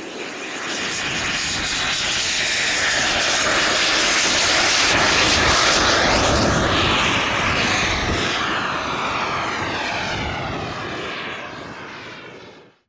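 A Jetsmunt VT80 model jet turbine runs at full power on an RC jet's takeoff run and climb-out: a loud jet rush and whine that swells as the model passes close by, then fades as it climbs away. It cuts off suddenly near the end.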